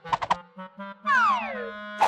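Cartoon music and sound effects: a few quick short notes, then about a second in a pitched tone that glides steadily downward for about half a second.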